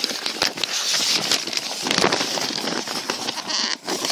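Newspaper being crumpled and rustled right at the microphone: a dense, crackly rustle that dips briefly near the end.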